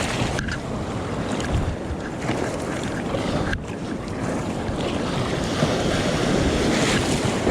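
Surf breaking and water rushing around a kayak as it is paddled out through the shore break, with wind buffeting the microphone.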